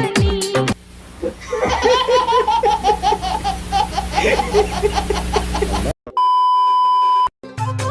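High-pitched laughter, a fast run of repeated 'ha' bursts lasting about five seconds. It cuts off into a loud, steady electronic beep of about a second, and then music comes in.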